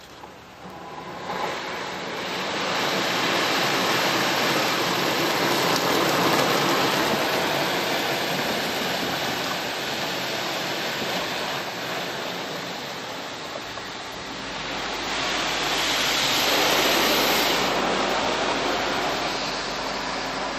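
Automatic car wash water jets spraying over a car, heard from inside the cabin as a steady rushing hiss against the glass and body. It builds about a second in, eases off slightly, then surges again about three quarters of the way through, when a low hum joins.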